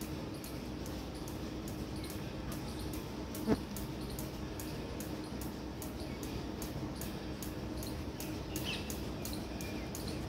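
Steady outdoor background with a low hum and faint high ticking about three times a second, broken by one sharp click about three and a half seconds in and a few faint high chirps near the end.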